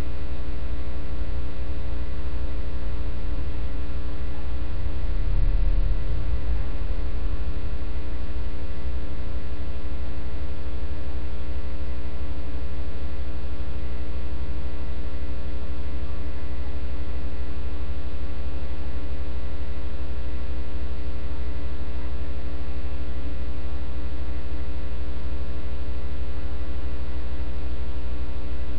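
Loud, steady electrical mains hum, a low drone with a buzz of evenly spaced overtones above it, with a brief deeper rumble about five seconds in.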